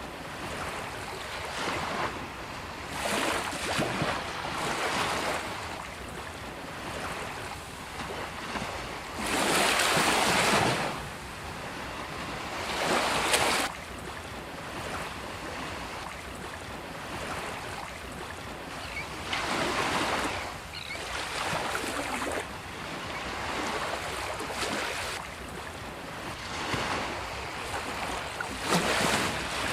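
Ocean waves breaking on a beach: a steady wash of surf that swells and ebbs every few seconds. The biggest break comes about nine to eleven seconds in, and another surges and cuts off sharply about thirteen seconds in.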